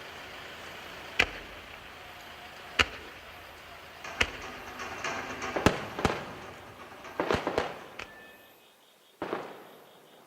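Aerial firework shells bursting, a string of sharp booming reports. They come closer together in the middle, over a crackling haze, and one last report sounds near the end.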